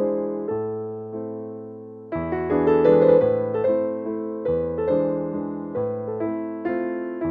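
Background piano music: chords and melody notes struck and left to fade, growing louder about two seconds in.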